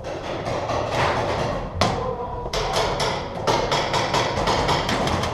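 Paintball game in an indoor arena: irregular sharp cracks and thuds of markers firing and paintballs striking bunkers, several a second at times, echoing in a large hall.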